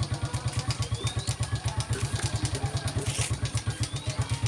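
A small engine running steadily at idle, with an even, quick low throb. Faint clicks and a few short chirps sound above it.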